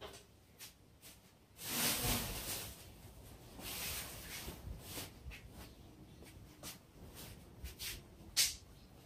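Shuffling and rustling movement noises with scattered light clicks and knocks, as someone walks slowly with a walker. The loudest part is a hissy rustle about two seconds in, with a sharp click near the end.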